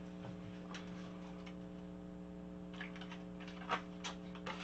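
A few light clicks and taps of small objects being handled and moved on a craft desk, the sharpest about three and three-quarter seconds in, over a steady low electrical hum.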